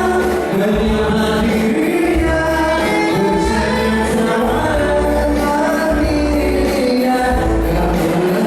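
A singer performing a song with instrumental accompaniment and a steady bass line underneath.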